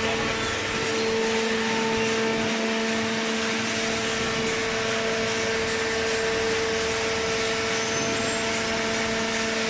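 Hydraulic cardboard baler's power unit running: an electric motor and hydraulic pump giving a steady hum with a constant whine over mechanical noise.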